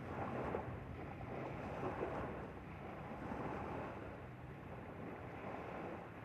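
A boat's engine running steadily with a low hum, under water rushing and splashing past the hull and wind on the microphone.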